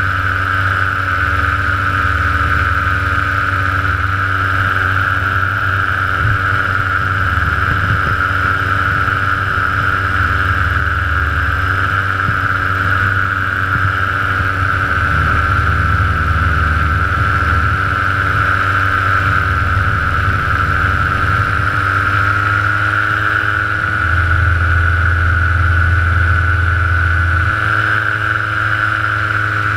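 Light aircraft engine and propeller running steadily in flight, with a low rumble beneath. The engine pitch rises slightly about three-quarters of the way through.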